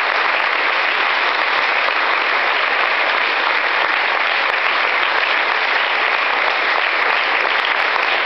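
Steady applause from a theatre audience and the cast on stage, many hands clapping at once.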